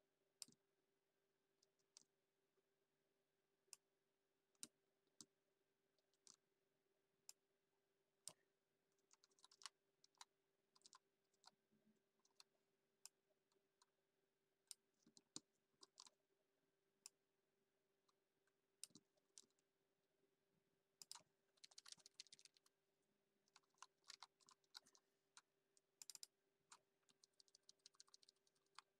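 Faint computer keyboard typing: scattered single keystrokes and clicks, with quicker runs of typing about a third of the way in and again in the last third, over a faint steady hum.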